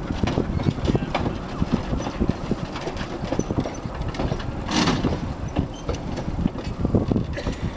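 1855 B&O 4-4-0 steam locomotive William Mason moving slowly, its rods and running gear clanking and knocking in an uneven rhythm, with a brief burst of steam hiss about five seconds in.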